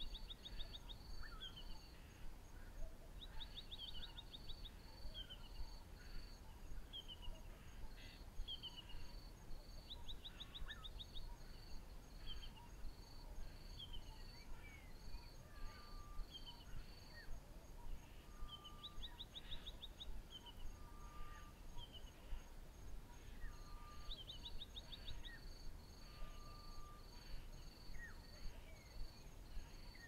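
African bush ambience: several birds calling with short whistles and quick descending trills over a steadily repeating pulsed chirp of insects, with a faint fast ticking above and a low rumble underneath.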